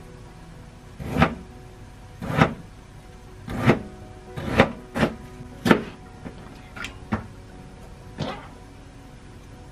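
Kitchen knife cutting daikon radish into chunks on a cutting board: about nine separate chops, roughly a second apart, each a sharp knock of the blade on the board.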